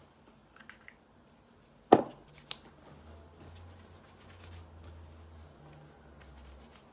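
A small bottle set down on a desk with a sharp knock about two seconds in and a lighter tap just after, then soft rustling of hands rubbing hair product through damp hair.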